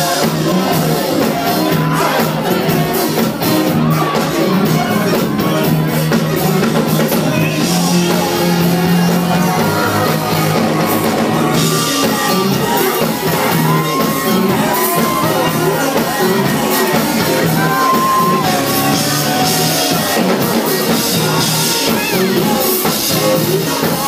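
Loud live band music, with the crowd shouting and whooping.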